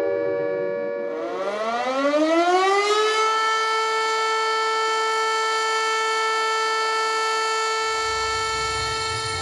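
Civil defence sirens wailing in commemoration of the start of World War Two. A falling tone dies away while a new tone winds up over about three seconds, then holds at a steady pitch.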